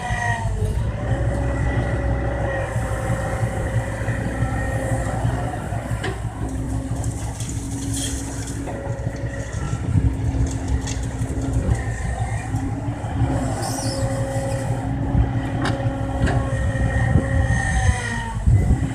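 Kobelco crawler excavator working: its diesel engine runs steadily under load, with a whine from the hydraulics that rises and falls as the machine moves. A few sharp clanks and brief hisses come through the engine noise.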